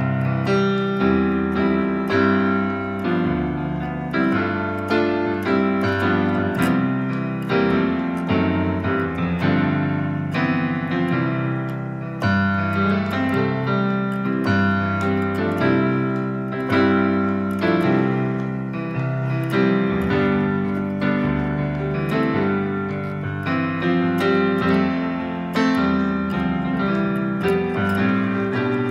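Portable electronic keyboard played with both hands in a piano voice, low sustained notes under higher ones, with new notes and chords struck in a steady, continuous flow.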